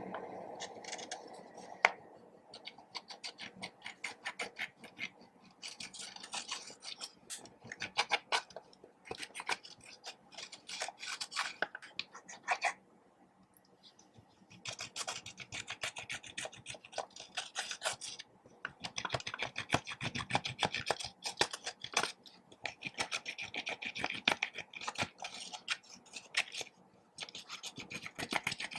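Scraping, rubbing and crackly clicking from slime being worked and mixed with makeup, coming in bursts with short pauses about thirteen seconds in and near the end.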